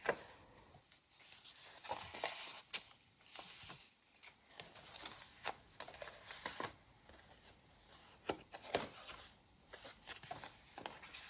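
Paper rustling and soft taps as the pages, cards and tags of a handmade junk journal are turned and handled, with a few brief crisp rustles scattered through.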